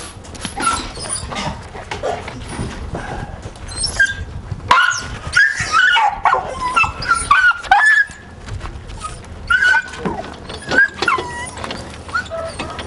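A dog held on an animal-control catch pole yelping and whining, a rapid string of short high cries starting about five seconds in. Before that, a few faint knocks.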